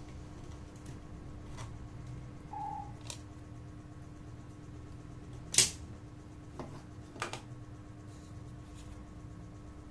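Scattered handling clicks and knocks, the loudest about five and a half seconds in, with one short electronic beep about two and a half seconds in.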